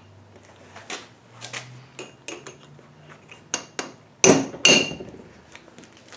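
Sharp metal-on-metal knocks and clinks against a differential pinion gear as its cracked, ground-through inner pinion bearing is worked off the shaft. A string of scattered strikes, the two loudest coming close together a little over four seconds in.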